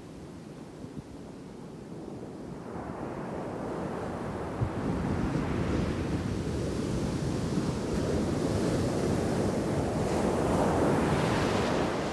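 Ocean surf breaking on a beach with a heavy shore break: the rumble of an incoming wave swells from a few seconds in and peaks near the end in a loud crash and hissing wash, then begins to ease.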